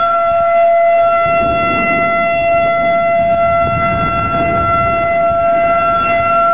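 Outdoor tornado warning siren sounding one steady, unchanging tone, with a rough low rumble underneath.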